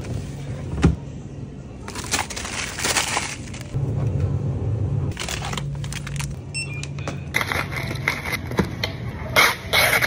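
Close handling sounds: a glass freezer door opens with a knock about a second in, plastic food packaging rustles, then near the end the film lid is peeled off a plastic cup of ice. A steady low hum runs underneath.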